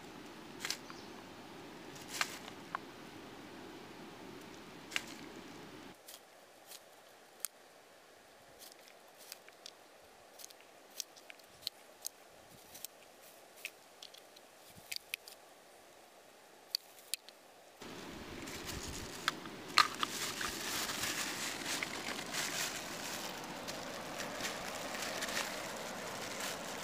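Freshwater clam shells clicking against one another in sharp, scattered clicks as they are picked up by hand and dropped into a plastic bag. About two-thirds of the way through, louder crinkling of the plastic bag being handled joins the clicks.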